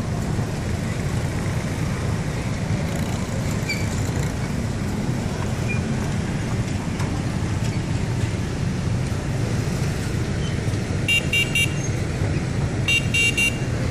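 River car ferry's engine running with a steady low rumble. Near the end a high-pitched horn beeps twice in quick groups of about three short toots.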